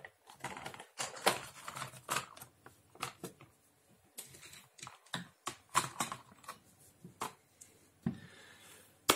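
Hard plastic toy parts clicking and clacking as a Transformers toy's plastic trailer is opened and the pieces are handled and set into it. The clicks are irregular and sharp, several a second.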